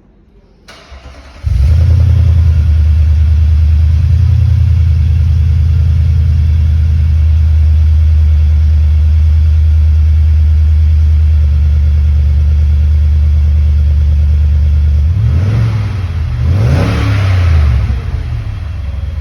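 Y62 Nissan Patrol's V8 through a Torqit 3-inch exhaust, starting up about a second and a half in and idling steadily, then revved up and down a couple of times near the end.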